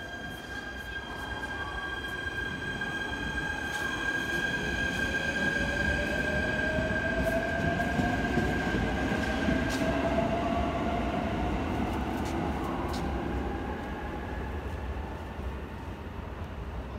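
Electric commuter train, a JR East E129 series, pulling out of a station: its motors whine in a tone that rises steadily as it gathers speed, with scattered clicks of wheels over rail joints. The sound swells as the cars pass close by, then fades away.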